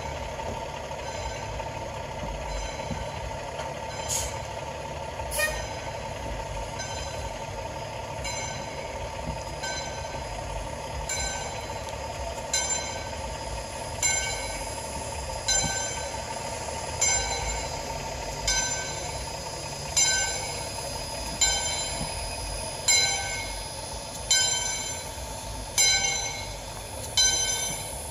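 Steam locomotive's bell ringing in slow, even strokes, about one every second and a half, faint at first and growing louder through the second half, over a steady background rumble.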